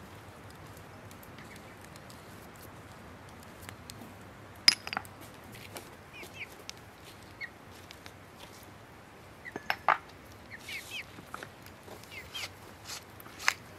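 Quiet outdoor background with scattered short bird chirps. A few light clicks and knocks come from small ceramic spice bowls and a wooden pepper mill being handled, the sharpest about five seconds in, about ten seconds in, and near the end.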